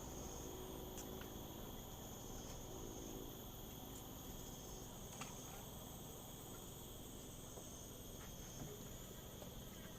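Crickets chirring steadily, a continuous high-pitched trill, over a low background hum, with a few faint ticks.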